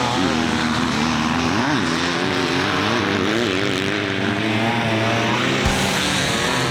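Off-road race vehicle engines running, their pitch wavering up and down with the revs, and a short low thump near the end.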